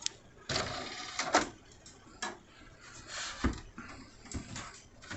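DVD burner tray sliding out and back in on its motor, with sharp clicks and a low knock from the PC case being handled.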